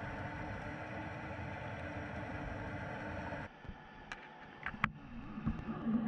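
Muffled underwater noise through a submerged action camera's microphone: a steady hiss with a faint hum that drops off abruptly about three and a half seconds in. After it come a few sharp clicks and knocks as the weighted rig bumps about near the seabed, then a low wavering tone near the end.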